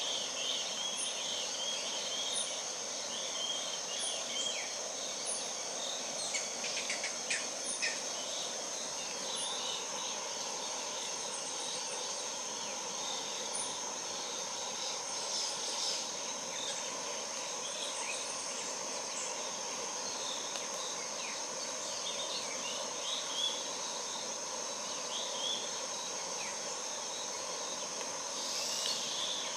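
Steady high-pitched insect drone, with scattered short bird chirps over it.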